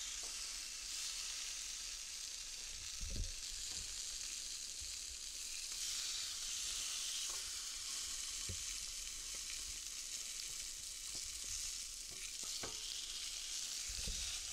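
Raw meat strips and hash brown patties sizzling steadily on a hot ribbed griddle, with a few soft low knocks as pieces of meat are laid down, about three seconds in and again near the end.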